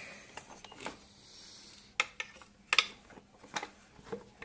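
Handling noise from reassembling a Kenwood Chef mixer: parts of the body being lowered into place and a small metal tool probing to line them up, giving a handful of separate sharp clicks and knocks, two of them in quick succession near the middle.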